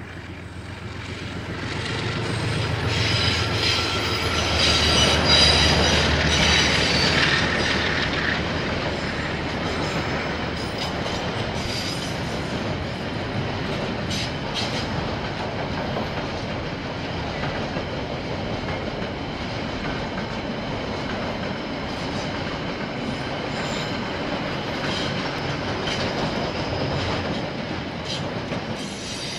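Diesel-hauled train passing close by. The locomotive's engine hum comes through for the first several seconds, along with a high squeal from the wheels. After that comes a long, steady run of wagons rolling on the rails, which drops away at the very end.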